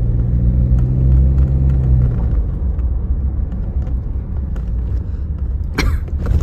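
A car on the move: low engine and road rumble, with a steady low engine hum for about the first two seconds that then fades into the rumble.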